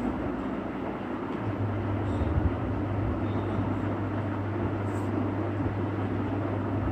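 Steady background rumble and hiss. A low, steady hum joins about a second and a half in.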